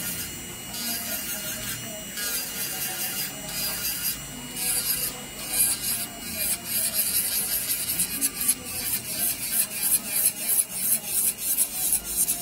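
Electric nail drill at low speed, its white barrel bit buffing the surface of an acrylic powder nail in light gliding passes: a rasping hiss that turns into quick repeated strokes, about three or four a second, in the second half.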